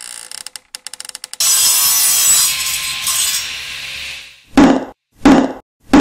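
Intro sound effects: a long rasping, sawing-like noise that fades away, then three heavy knocks about two-thirds of a second apart as the logo appears.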